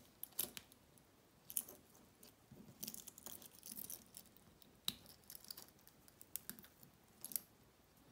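Faint scattered clicks and clinks of a stainless steel link bracelet and its fold-over clasp being handled, with a brief cluster of rustling handling noise in the middle and a sharper click about five seconds in.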